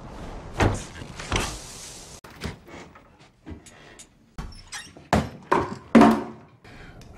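Doors and wooden cupboards banging open and shut, with things knocked about on a counter: a string of sharp knocks and thuds, the loudest one about six seconds in.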